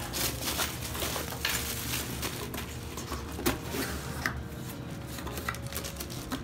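Cardboard packaging being handled and opened: plastic wrap crinkling, cardboard rubbing, and the box lid lifting, with small sharp clicks and knocks throughout.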